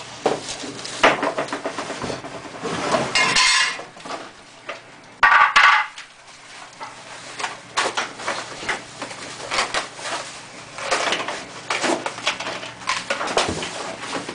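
Office chair parts being unpacked by hand: hard plastic and metal pieces clattering and knocking against each other and the floor, with rustling of plastic wrapping and cardboard and a louder half-second rustle about five seconds in.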